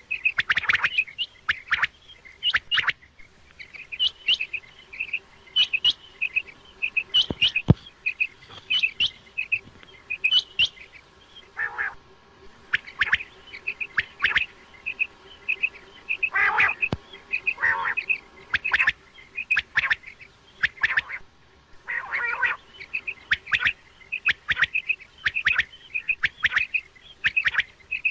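Quail calling over and over in quick runs of short, high notes, with a lower, longer call now and then. It is a quail hunting lure call, the kind played at night.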